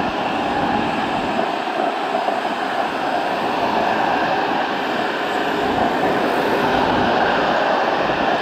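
Airbus A330-243's Rolls-Royce Trent 772 turbofan engines running at taxi power as the airliner taxis, a steady rushing hum that grows slightly louder in the second half.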